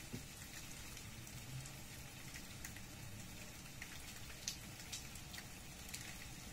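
Light rain falling: a faint steady hiss with single drops ticking louder here and there.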